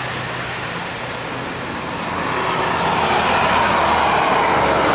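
Road traffic: a heavy vehicle's engine hum and tyre noise grow louder from about two seconds in as it approaches.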